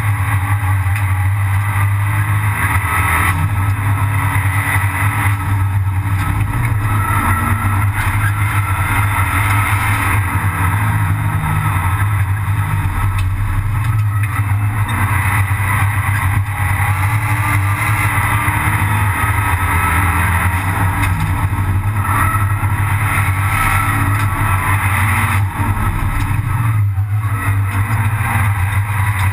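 Abarth 500 Assetto Corse race car's turbocharged 1.4-litre four-cylinder engine running hard at racing speed, heard loud and steady from inside the stripped cabin, with a few brief dips in level.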